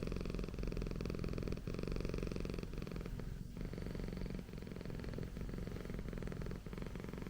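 Persian cat purring: a steady, fast, low rumble.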